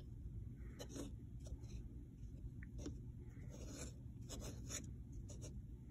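Faint handling noises: a scatter of light clicks and scratchy scrapes, over a low steady hum.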